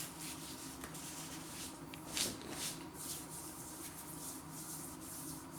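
Faint rustling and handling noises over a low steady room hum.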